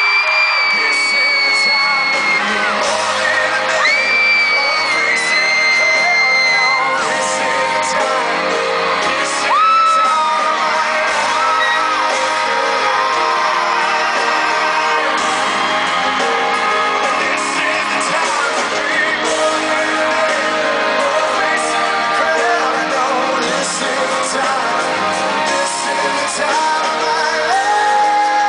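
A rock ballad played live in a large arena hall: a full band with a singing voice. Long, high screams and whoops from the crowd run over the music.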